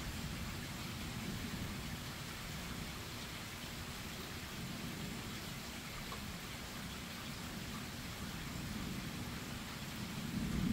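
Steady rain falling during a thunderstorm, an even hiss over a low background rumble. Thunder begins to rumble in, getting louder near the end.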